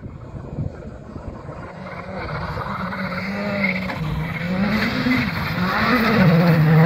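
Skoda Fabia rally car's engine approaching at speed on gravel, getting steadily louder, its revs climbing and dropping several times through gear changes and lifts, loudest near the end as it passes close.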